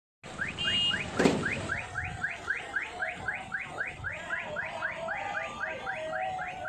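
Electronic siren yelping: short rising sweeps repeating evenly, about four or five a second. A sharp knock sounds about a second in.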